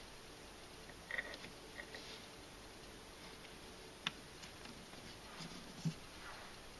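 Faint clicks and light taps of a hand placing and adjusting small items inside a miniature room box, with a sharper click about four seconds in and a soft knock near six seconds.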